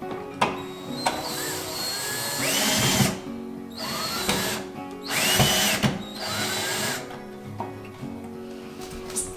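Power drill driving the switch's mounting screws, in three bursts, its motor whine rising in pitch as each burst spins up. Acoustic guitar music plays underneath.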